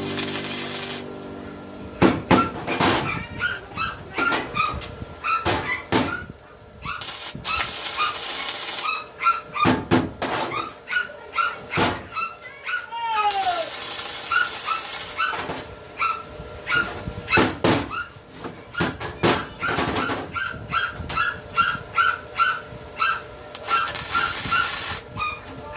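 Short high animal calls repeating a few times a second, with scattered sharp knocks among them.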